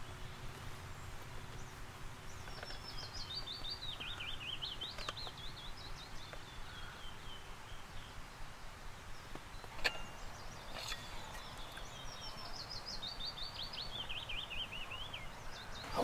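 Willow warbler singing: two sweet phrases of quick notes, each cascading downward over a few seconds, the second starting about eleven seconds in. A single sharp click about ten seconds in.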